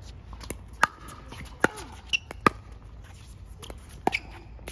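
Pickleball rally: paddles hitting the plastic ball back and forth, a string of sharp hits less than a second apart.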